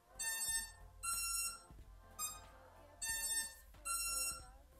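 Racing quadcopter's electronic speed controllers beeping through its motors just after the LiPo battery is plugged in: a series of short electronic beeps of changing pitch, about once a second. This repeated beeping is typical of ESCs that get no throttle signal, as no receiver is fitted.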